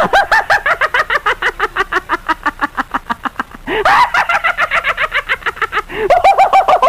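Comic sound effect of rapid, high-pitched cackling laughter, about eight quick pulses a second, cutting in abruptly and loud.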